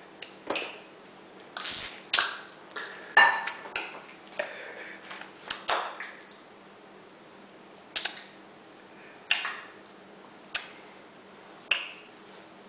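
A series of short, sharp clicks and smacks at irregular intervals, close together at first and sparser in the second half, over a faint steady hum.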